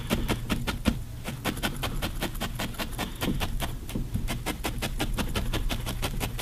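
A large felting needle stabbing over and over into wool, making quick, even pokes at about five a second, as the surface of the felted figure is firmed and smoothed.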